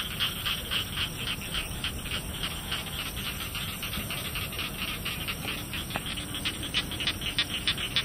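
Night chorus of rice-field animals: one caller repeats short high chirps evenly at about four a second, over a low rumble.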